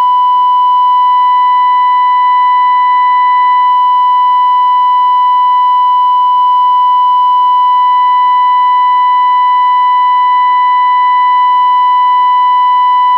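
Steady, unbroken single-pitch test tone from the Zenith Royal 51 transistor radio's speaker: the signal generator's FM modulation tone demodulated by the radio while its 10.7 MHz IF stages are being aligned.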